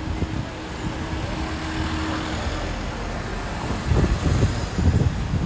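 City street traffic: a car running close by, with a steady hum that stops a little over two seconds in, then heavier low rumbling near the end.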